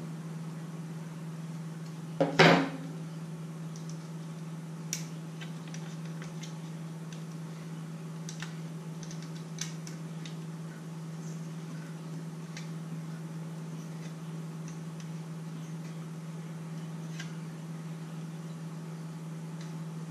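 Light, scattered clicks and taps of small tools and plastic and metal parts being handled while a Yuneec Typhoon H hexacopter's arm is taken off, with one louder knock about two seconds in. A steady low hum runs underneath.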